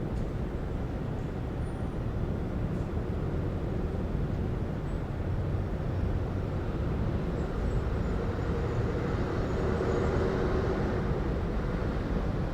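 City ambience of steady low traffic rumble. It swells for a few seconds near the end as a vehicle passes closer.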